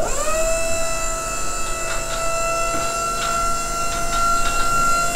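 Bri-Mar dump bed insert's electric-hydraulic pump running as the bed is powered down. It is a steady whine that rises briefly as the motor comes up to speed, then holds one pitch.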